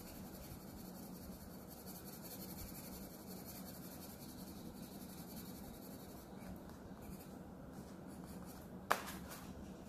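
Black colour pencil scratching and rubbing steadily on drawing paper as an area is filled in with strokes. A single sharp click comes near the end.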